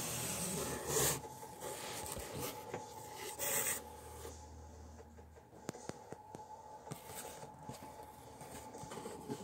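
Cardboard rubbing and scraping as a shipping box is opened and the shoebox inside is handled. A few louder scuffs come near the start, about a second in and about three and a half seconds in, followed by lighter taps and handling noise.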